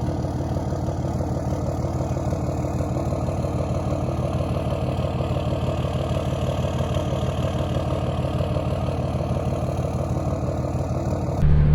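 An engine idling steadily with an even, fast pulse, then cutting off abruptly near the end.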